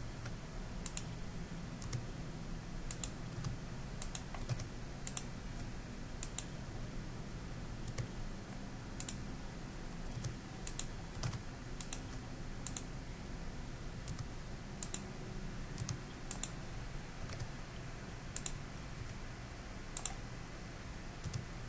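Typing on a computer keyboard: irregular, quiet keystrokes in short runs, over a low steady hum.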